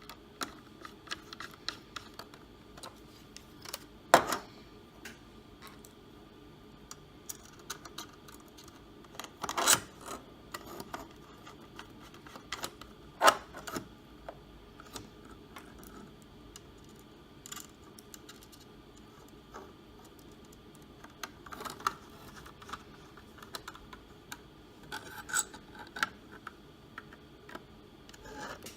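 Irregular small clicks, taps and light scraping of a screwdriver, tiny screws and the hard-drive bracket being handled as the bracket is unscrewed and moved to the SSD, with sharper knocks about 4, 10 and 13 seconds in.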